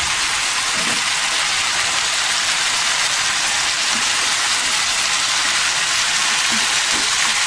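Chicken pieces sizzling in hot oil and their own juices in an open non-stick wok: a steady, even hiss.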